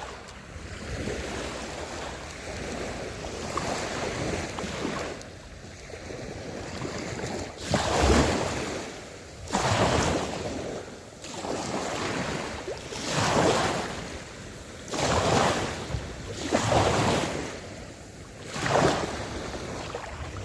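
Small waves washing and breaking at the water's edge. From about a third of the way in they surge in one after another, roughly every couple of seconds.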